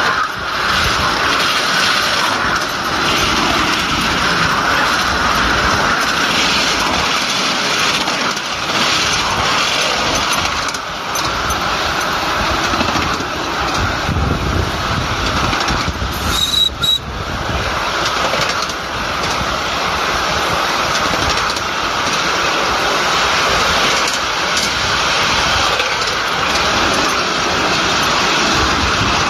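A 5-inch gauge miniature steam locomotive running along its track, heard from the car riding right behind it: a steady rushing rattle of wheels on the rails and the running engine. A brief high squeak about seventeen seconds in.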